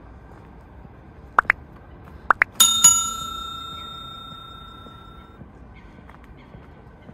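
Bicycle bell rung with two quick strikes, its ring dying away over about three seconds, with a few short high chirps just before it.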